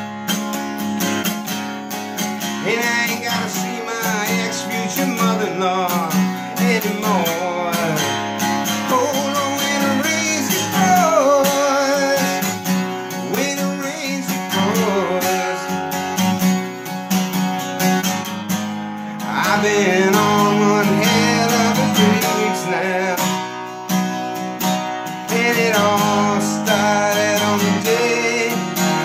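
Acoustic guitar strummed steadily as song accompaniment, with a wavering melody line over the chords.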